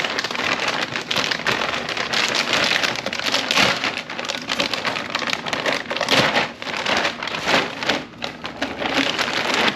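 Packaging crinkling and rustling continuously with many sharp, irregular crackles as new parts are unwrapped.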